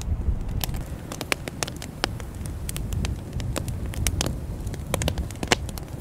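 Campfire crackling, with many sharp, irregular pops from the burning wood over a low rumble.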